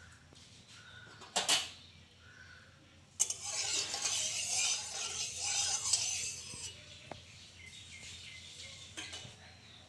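A metal spoon clinks once on a metal karahi, then scrapes around the pan for about three seconds, spreading the heated mustard oil.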